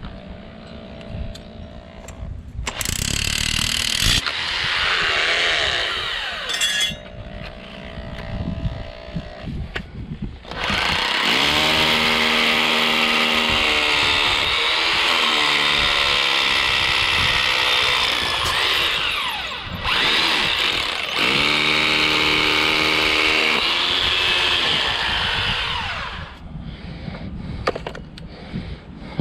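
Makita rotary hammer drilling into concrete: two short runs, then a long steady run of about fifteen seconds with a brief dip partway through. The bit strikes something hard in the concrete, which the operator takes for either a stone from the aggregate or steel reinforcement.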